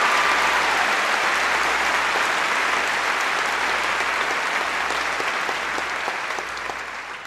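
Theatre audience applauding steadily at the end of a song, the applause fading away near the end.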